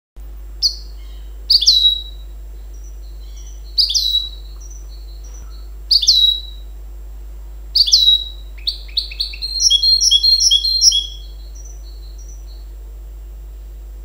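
Goldfinch × canary hybrid (mule) singing: loud, sharp, high notes about every two seconds, then a fast run of repeated trilled notes from about eight to eleven seconds, tailing off into a few fainter notes.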